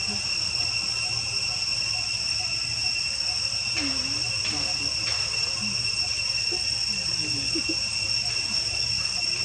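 Insect chorus, such as crickets or cicadas, keeping up a continuous high-pitched shrill drone on two steady pitches. A few faint short sounds come and go in the background near the middle.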